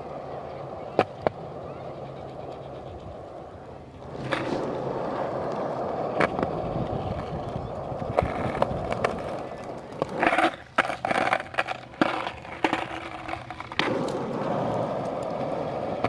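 Skateboard wheels rolling on a ramp surface, swelling and fading, with several sharp clacks of the board and a brief flurry of knocks later on.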